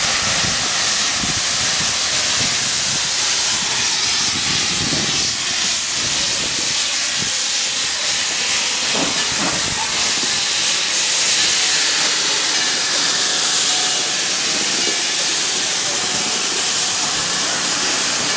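Steam locomotive Lehigh Valley 126 hissing steam steadily as it rolls slowly past.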